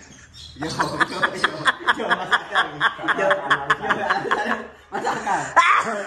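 People laughing: a run of quick, evenly pulsed laughs lasting about four seconds, followed by a little talk near the end.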